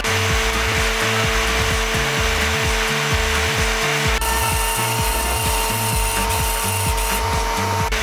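Small electric ATV winch motor whining steadily as it winds in its cable and hoists a heavy post under load, with background music and a steady beat over it.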